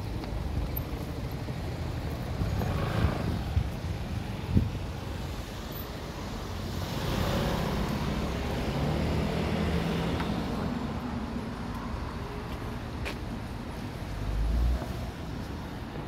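Road traffic on a city street: cars and a motorcycle driving past, engine and tyre noise, swelling louder for a few seconds near the middle.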